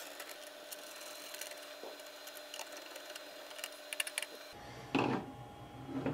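Screwdriver driving the screws of the plastic AMD CPU-cooler bracket clips into the motherboard's backplate: light, scattered clicks and ticks of metal on screw and plastic, with a louder short knock about five seconds in.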